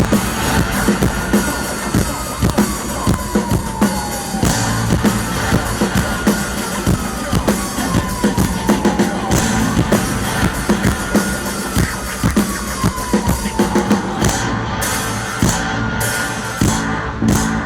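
Live rock band playing an instrumental intro, with a driving drum kit and a repeated melodic line that slides down in pitch every few seconds. Sharp drum and cymbal hits pick up near the end.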